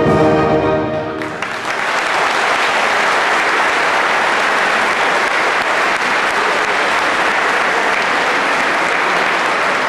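A recorded brass and orchestral national anthem ends about a second in. The crowd then applauds steadily.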